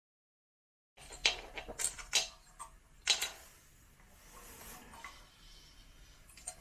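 Metal parts of a disassembled Instant Pot base clinking and knocking as they are handled and turned over: four sharp clanks in the first few seconds, then faint handling rustle. It opens with a second of dead silence.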